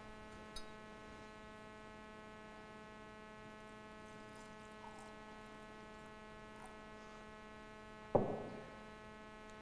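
Steady electrical mains hum, with a single knock about eight seconds in as the communion pitcher is set back down on the table.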